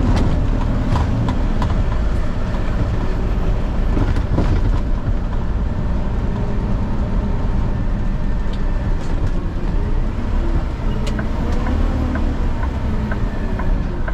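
Diesel truck driving, heard from inside the cab: a steady low engine and road drone with scattered small rattles and clicks.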